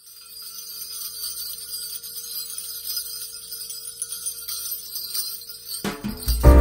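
Jingle bells shimmering as they fade in, as the intro of a music track, then a full band comes in with a strong low end near the end.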